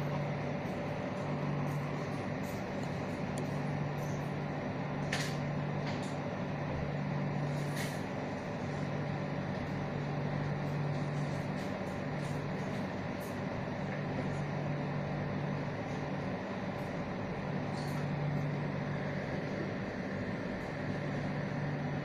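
Steady electrical and mechanical hum of a shop's wall-mounted air conditioners. A low drone within it cuts in and out every few seconds, and there are two brief high clicks about five and eight seconds in.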